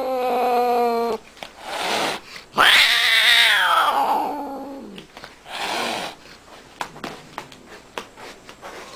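Angry cat yowling in threat, a long drawn-out caterwaul. One yowl ends about a second in, a short one follows, then a long loud yowl rises and falls away, and a shorter one comes near the middle. The last few seconds are quieter, with a few faint clicks.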